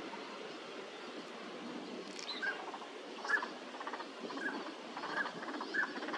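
Northern pintails calling: a run of short pitched calls, about one a second from roughly two seconds in, over a steady background hiss.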